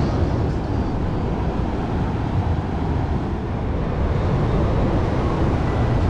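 Wind buffeting the microphone in an unsteady low rumble, over the wash of ocean surf breaking on the beach.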